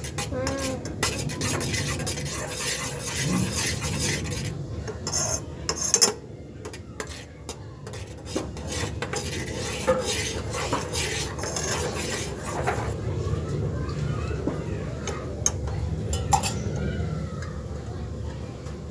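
Metal utensils clinking and scraping: a spoon stirring milk and knocking against a metal pot while the milk heats, with a run of sharp clinks, the loudest about six seconds in.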